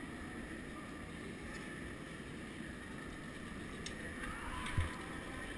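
Steady, muffled background noise of a large indoor hall, heard through a helmet-mounted camera, with a few faint clicks about four seconds in and a short dull thump near the end.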